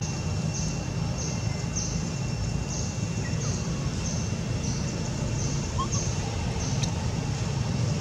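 Outdoor ambience: a steady low rumble under a short high chirp that repeats evenly, about one and a half times a second.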